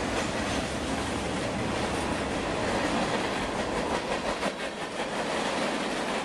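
Freight train cars rolling past at close range: steel wheels on the rails make a steady rumbling noise, with a few sharp clicks at the start and a cluster of clicks about four and a half seconds in.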